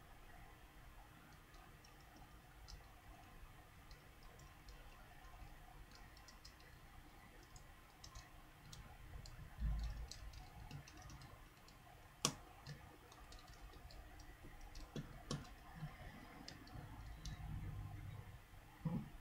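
Faint, irregular small metallic clicks and ticks of a small Phillips screwdriver and tiny screws working against a phone's internal parts, with one sharper click about twelve seconds in.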